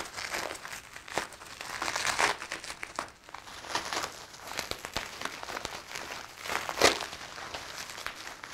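Bubble wrap being handled and unwrapped by hand: irregular plastic crinkling and crackling, with sharper crackles about two seconds in and again near seven seconds.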